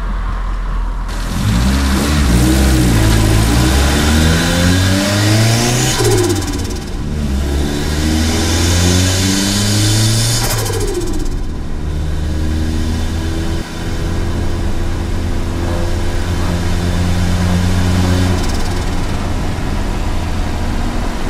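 Turbocharged Mitsubishi Mirage running with no blow-off valve, accelerating in two short pulls under boost. Each pull has a rising engine note with a loud turbo and intake hiss, and each ends in a falling pitch at a gear change. The car then settles into steady cruising.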